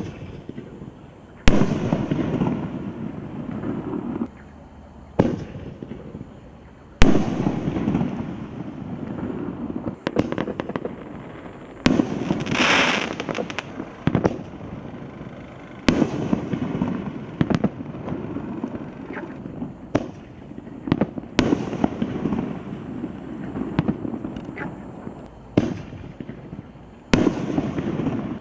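Phantom Fireworks G-498 Neon Blaze fireworks going off: about ten sharp reports, one to four seconds apart, each trailing off over a second or two, with a brief hiss about halfway.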